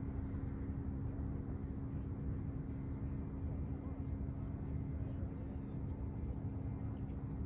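Steady low outdoor rumble with a constant hum beneath it, and a few faint bird chirps, about a second in and again past the middle.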